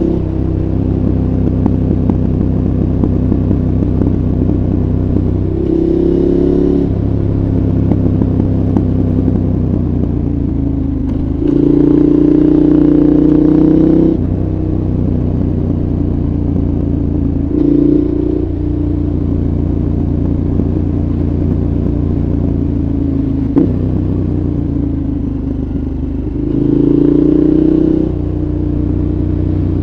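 KTM 1190 Adventure's 1195 cc V-twin with a Giannelli exhaust, running at low, steady revs with four short bursts of throttle where the note rises and gets louder, the longest about halfway through. A single sharp tick sounds about three-quarters of the way in.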